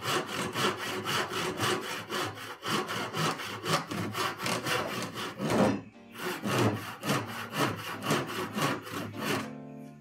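Hand saw cutting along the centre line of a wooden hammer handle, in quick even strokes, to make the kerf for a wedge. The sawing pauses briefly about six seconds in, then goes on. Acoustic guitar music comes in near the end.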